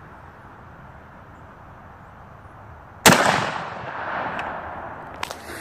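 A single .243 rifle shot about three seconds in, its report rolling away in a long echo that fades over about two seconds. Two short sharp clicks follow near the end.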